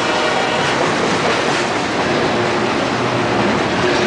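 Autorack cars of a freight train rolling past, with loud, steady noise of steel wheels on the rails.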